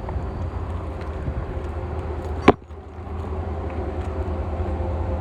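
Steady low car engine and road rumble, broken about halfway by one sharp click and a brief drop in level.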